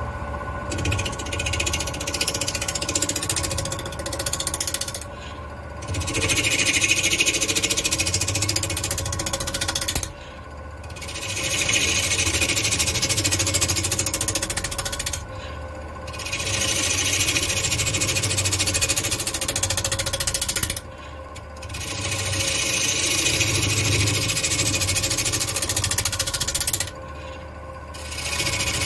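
Wood lathe spinning a black walnut bowl blank at about 800 rpm while a bowl gouge cuts into it in five passes of about four to five seconds, each separated by a brief pause where only the lathe's steady hum is heard.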